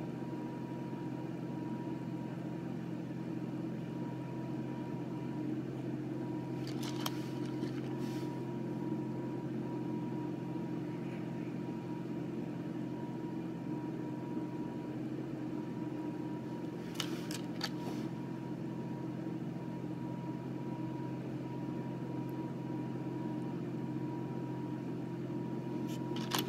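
A steady low machine hum with a thin high tone above it, unchanging throughout, with a few brief clicks at intervals.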